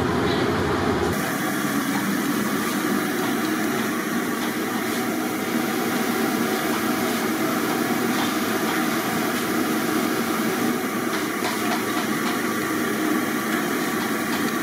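Potato fries deep-frying in hot oil: a steady sizzle with faint scattered crackles.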